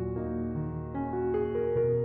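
Background music: slow melodic chords over a sustained bass line, the notes changing every half second or so.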